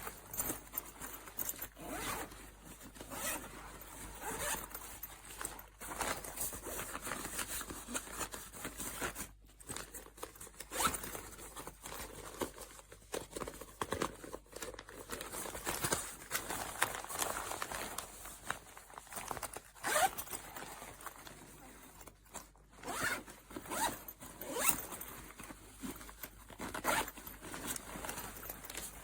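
Zippers on a fabric cabin backpack being pulled open and shut again and again, with rustling and handling of the bag's fabric.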